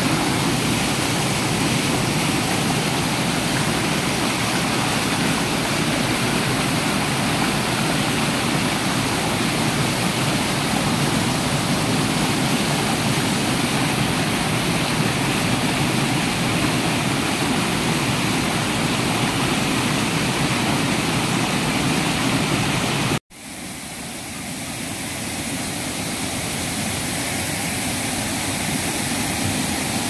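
Waterfall and stream rushing over boulders, a steady full rush of water. About 23 seconds in it cuts off abruptly, then returns quieter and gradually builds back up.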